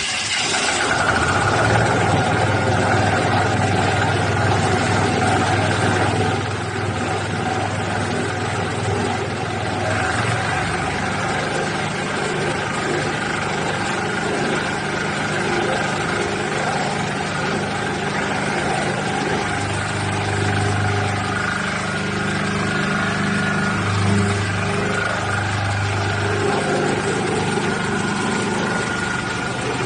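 Concrete mixer running, a steady engine-like drone that shifts slightly about six seconds in and again about ten seconds in.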